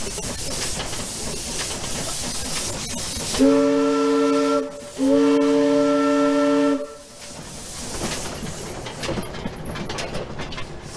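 Steam whistle of an 1889 Porter wood-fired narrow-gauge steam locomotive blowing two blasts, a short one and then a longer one, several notes sounding together as a chord. A steady hiss of steam runs under and around the blasts.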